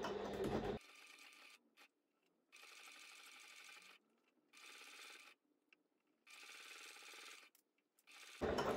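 Sewing machine stitching slowly through thick, folded canvas with a rapid needle rhythm. It is loud for about the first second, then much quieter in short stop-start runs with brief pauses, and loud again near the end.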